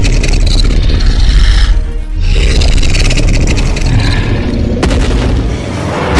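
Loud dramatic soundtrack with deep booming hits, mixed with a Tyrannosaurus rex roar sound effect as the creature attacks. It dips briefly about two seconds in, with a sharp crack near five seconds and a heavy impact near the end.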